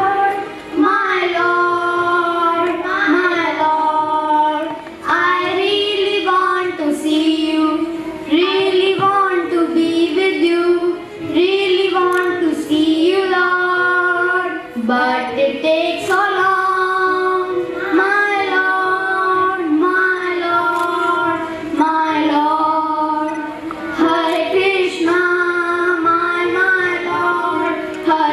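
Two young girls singing an English song together into microphones, a continuous melody with short breaks between phrases.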